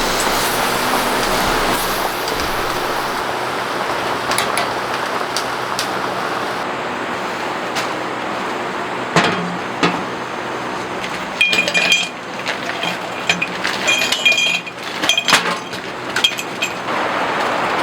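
Steady rain falling, with dishes and utensils clinking against each other in the second half, some knocks ringing briefly.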